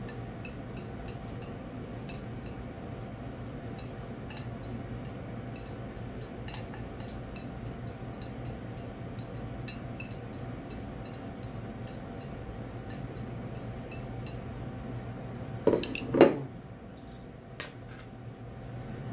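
Wooden chopsticks scraping and tapping against a ceramic plate and a stainless-steel mixing bowl, with scattered light clicks, while toppings are pushed off the plate and tossed with noodles. Two louder knocks come close together about three-quarters of the way through, over a steady low hum.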